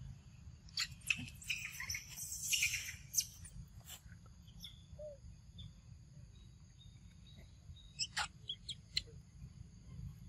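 Short, high-pitched animal squeaks and chirps, bunched together about one to three seconds in, with a few sharp clicks later, over a steady low rumble.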